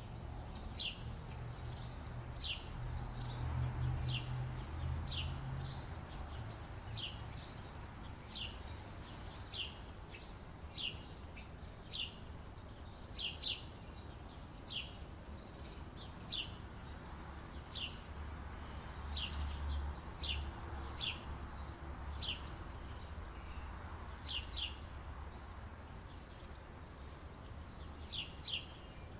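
A bird chirping over and over: short, sharp, high chirps, about one or two a second and sometimes in quick pairs, with a pause near the end. A faint low rumble swells twice beneath them.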